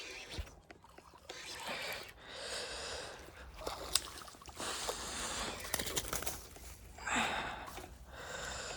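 A person breathing hard: several heavy breaths and gasps, with a few small clicks between them.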